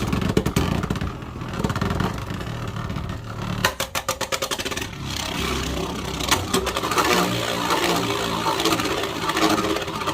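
Savior Valkyrie Beyblade Burst top whirring and scraping as it spins, just after a launch, with a run of rapid clicks and clatter about four seconds in.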